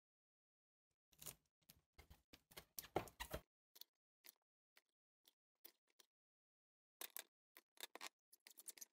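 Brown packing tape crackling and ticking as it is pulled off the roll and pressed around the joint of two tin cans, sealing it against leaks. It comes in two clusters of crackles with scattered single ticks between them.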